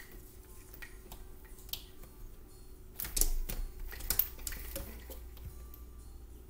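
Horizontal window blinds rattling and clacking as a cat climbs through them, the slats knocking together in irregular clicks, busiest and loudest about three to four seconds in.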